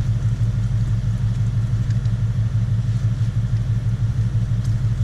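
Car engine idling steadily, a low, even drone.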